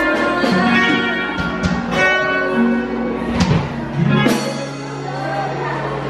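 A small live band plays: an acoustic guitar is strummed while a singer sings, with long held notes in the second half.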